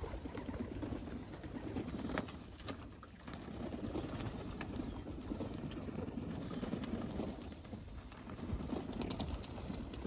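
A flock of racing pigeons cooing steadily, many birds at once.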